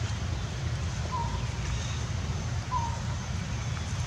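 Steady low rumble with a bird's short clear note, repeated twice about a second and a half apart.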